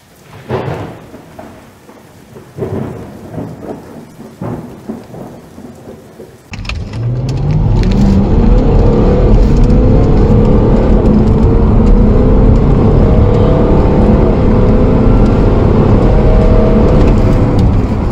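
Land Rover Range Rover Vogue's 4.4 TDV8 diesel V8 accelerating flat out from a standstill, heard inside the cabin. It is very loud, and its pitch climbs again and again through the run. Before it sets off, a few seconds of uneven gusty noise.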